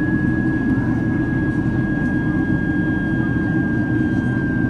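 Jet airliner cabin noise inside a Boeing 767-300ER in flight: a steady low roar of engines and airflow, with a thin steady high whine over it.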